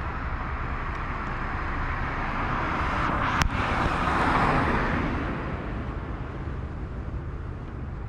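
A car drives past, its tyre and engine noise swelling to a peak about four seconds in and then fading away. A single sharp click is heard just before it passes.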